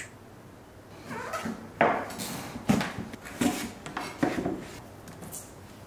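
Kitchen knife cutting through firm raw pumpkin and knocking on a plastic cutting board, about five cuts a little under a second apart.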